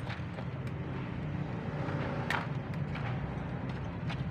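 Steady low background hum with a few light clicks from wires and wire-stripping pliers being handled; the clearest click comes a little past two seconds in.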